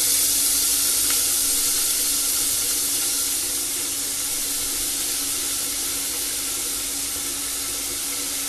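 Soaked, still-wet chana dal sizzling as it is dropped into hot oil in an aluminium pressure cooker: a steady hiss that slowly dies down, over a faint low hum.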